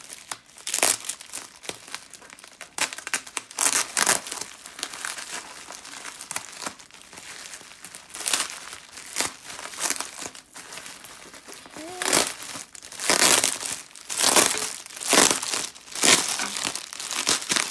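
Plastic bubble wrap crinkling and rustling in irregular bursts as it is handled and pulled open, loudest in the last few seconds.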